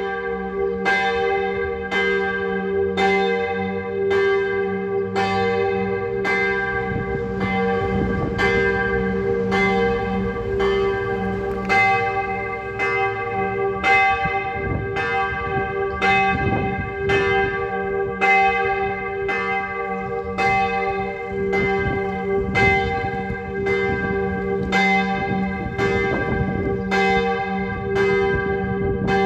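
A single church bell, tuned to g' and cast in 1959 at St. Florian, tolling about once a second in the tower, its hum ringing on between strokes. This is the Sterbestundenläuten, the toll for the hour of death.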